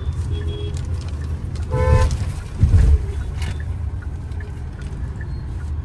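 Road and engine rumble inside a moving 2024 Hyundai Creta. About two seconds in, a car horn sounds briefly. Just after it comes a loud low thump.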